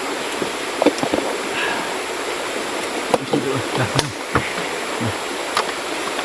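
Steady rush of a clear mountain river flowing over rocks, with brief faint voices and a few sharp clicks or knocks now and then.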